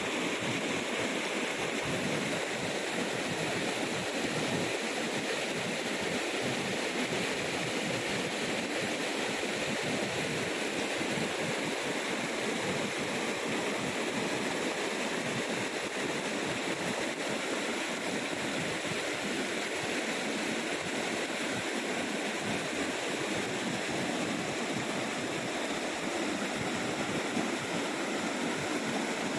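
Waterfall: falling water rushing steadily, an even, unbroken rush with no pauses or changes.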